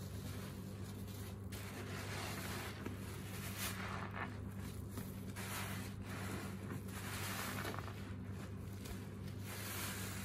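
A big foam block sponge loaded with thick soapy suds, squeezed and worked by gloved hands in a tub of foam: wet squishing and fizzing of suds in uneven swells, one every second or so. A faint steady low hum runs underneath.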